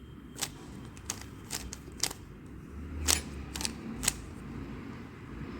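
3x3 Rubik's cube layers being turned by hand while an algorithm is performed: a string of short, sharp plastic clicks at an uneven pace, about seven in all.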